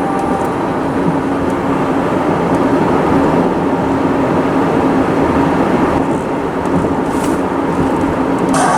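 Freight train rolling by, a steady loud rumble with a low hum running under it.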